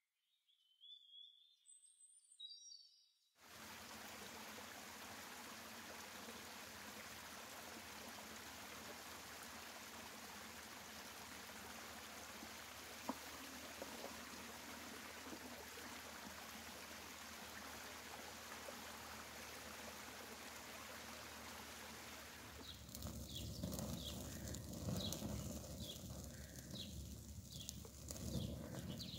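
A small stream running over rocks, a steady rushing, with a metal pot dipped and rinsed in the flow. A few bird chirps come before it, and near the end it gives way to a wood fire crackling, with a high chirp repeating about every second.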